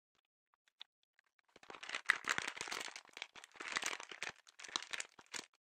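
Thin plastic bootie of a foot-peel mask crinkling as hands fasten it around the ankle with an adhesive tab, starting about a second and a half in and going on in uneven spells.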